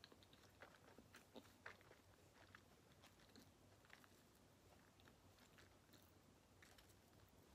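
Faint chewing and small mouth clicks from a person eating a last mouthful of food, in short, irregular ticks.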